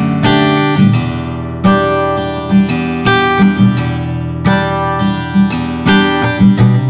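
Background music: strummed guitar chords, changing every second or so.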